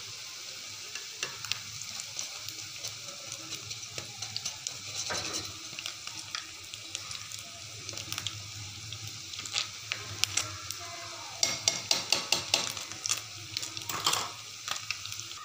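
Gram-flour pakoras deep-frying in hot oil in a metal pan: a steady sizzle with crackle. A wire skimmer scrapes and clinks against the pan, with a run of louder clicks and clinks about twelve seconds in.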